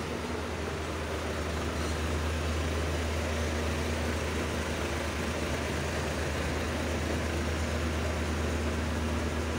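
Diesel engine of a concrete mixer truck running at close range, a steady low hum, over general street traffic noise.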